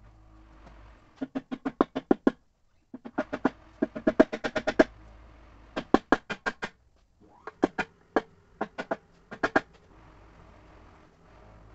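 Four quick bursts of sharp, ringing metal taps, about six a second, as a hand tool works on the cast bell housing of a forklift automatic transmission while the housing is being fitted.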